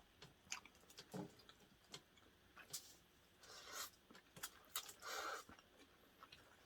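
Faint eating sounds: scattered small clicks and short wet mouth noises of people chewing food, a slightly longer one about five seconds in.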